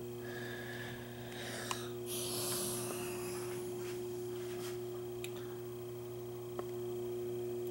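Steady hum made of a few clear tones, with a few light handling clicks and a brief rustle about two seconds in.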